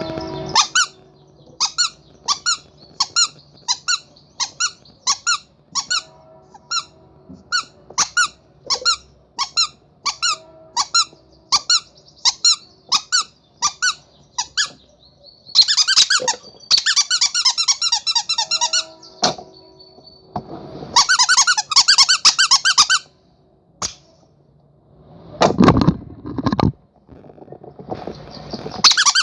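Rubber monkey squeaky toy being squeezed: a steady run of short, high squeaks about two a second for the first half, then quick runs of rapid squeaks, and a longer, lower squeak near the end.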